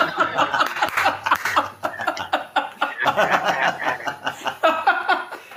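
Men laughing hard, a quick, steady run of ha-ha pulses.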